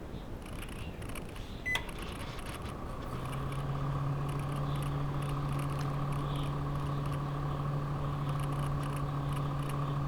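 Microwave oven: a single short button beep, then about three seconds in the oven starts running with a steady hum.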